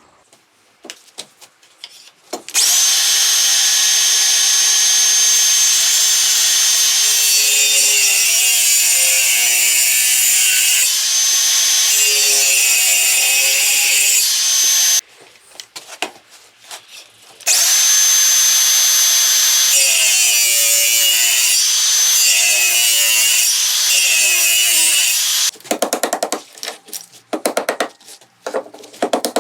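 Electric power tool working spruce timber. It runs in two long steady stretches with a high motor whine whose pitch sags under load, then in short, rapid stop-start bursts near the end.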